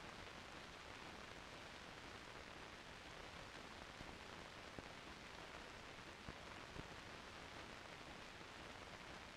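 Near silence: the steady hiss of an old film soundtrack, with a few faint clicks.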